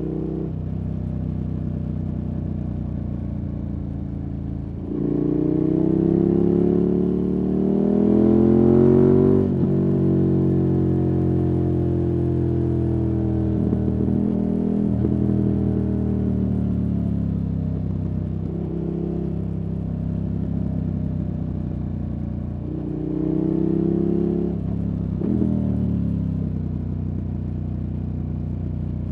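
KTM 1290 Super Adventure S's V-twin through an aftermarket Wings exhaust, pulling under load. The throttle opens about five seconds in and the engine climbs in pitch and gets louder for a few seconds, then it eases off and the pitch sinks slowly as the bike slows. It accelerates briefly once more near the end.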